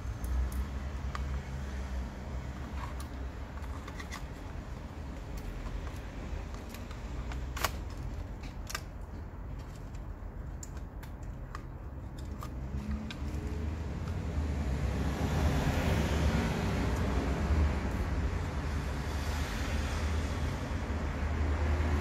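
Scattered light clicks and taps of a plastic pry tool and fingertips working the ribbon-cable connectors on a laptop motherboard, over a steady low rumble. Past the middle a broad rushing noise swells up and stays.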